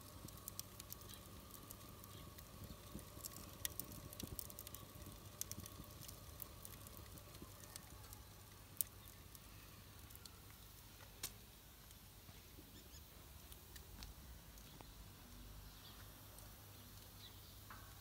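Firewood burning in the firebox of a wood-fired water heater, crackling faintly with scattered small pops that thin out after the first half. Two sharper pops stand out midway, a couple of seconds apart.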